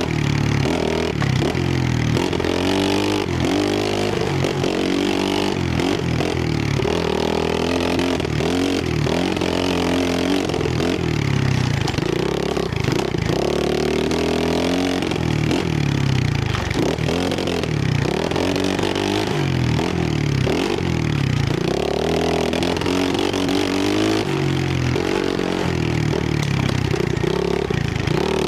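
Trailmaster 125cc pit bike engine and exhaust under way on a trail ride, the revs climbing and dropping again and again as the throttle is worked and gears are shifted.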